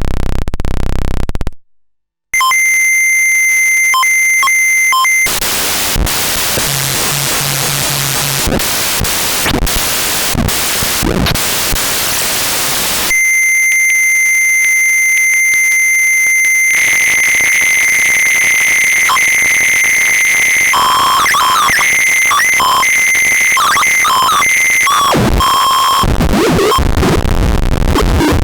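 Paratek "Kosmicheskiy Shum" eurorack module, a Jupiter Storm-style square-wave oscillator noise source, putting out harsh electronic tones and noise. A low buzz cuts off near the start and, after a short gap, a piercing high tone with overtones comes in. That gives way to a wash of hiss for about eight seconds, then the high tone returns and starts to warble and jump about.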